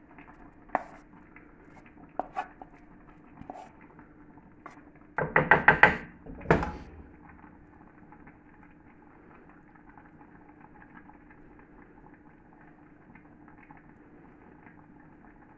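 Kitchen utensils clattering against cookware: a few light clicks, then a quick run of about five loud knocks about five seconds in, as when a spoon is tapped against a pan or dish. After that only a faint steady hum remains.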